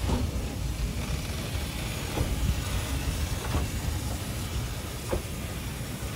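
Narrow-gauge steam tank locomotive 'Lyn' standing at the platform in steam, hissing steadily over a low rumble.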